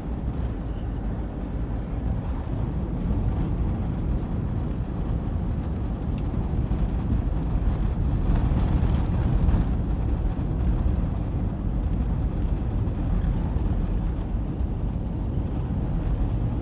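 Ford Transit van driving at a steady speed: engine and road noise from the moving van.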